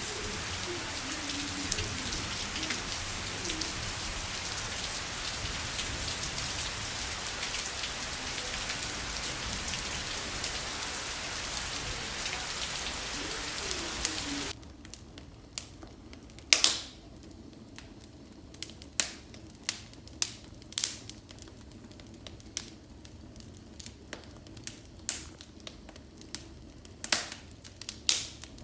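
Steady rain for about the first half. Then, after an abrupt cut, a wood fire in a fireplace crackling, with scattered sharp pops over a quiet background.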